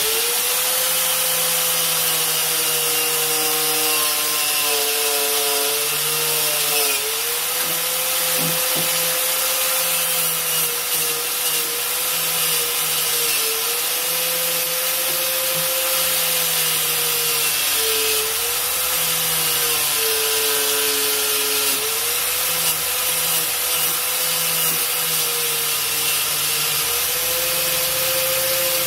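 Electric power tool running steadily while rust is being taken off a pocket knife's steel, the motor's pitch dipping briefly several times as the metal is pressed against it, over a constant high abrasive hiss.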